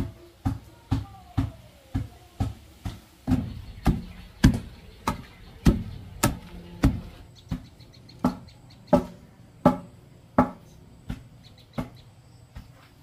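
Long wooden pestle pounding peanuts in a wooden mortar: dull thuds at about two a second, weakening and stopping near the end.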